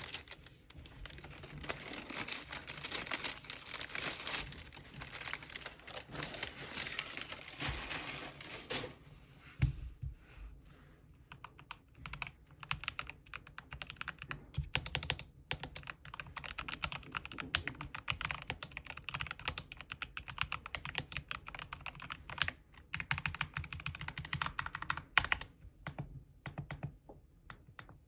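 Keys being pressed on a Corsair K70 mechanical keyboard. A dense run of rapid clicks for about the first nine seconds, then slower, separate keystrokes.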